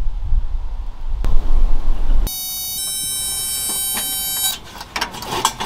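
A low rumble, then a steady electronic beeping tone about two seconds long, followed by clicks and rattles from the controls of a kerosene heater.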